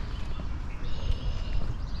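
Songbirds singing, with clear whistled notes starting about halfway in, over a steady low rumble and a few faint knocks.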